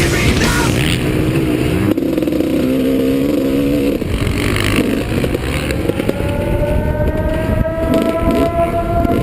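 Motocross bike engines running hard. Over the last few seconds one engine's pitch climbs steadily, revving higher as it accelerates.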